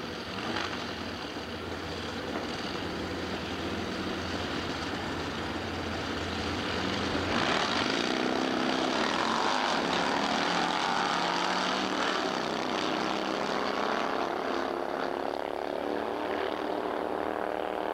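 Harley-Davidson V-twin drag racing motorcycles running on the starting line, then launching about seven seconds in and running at full throttle down the strip.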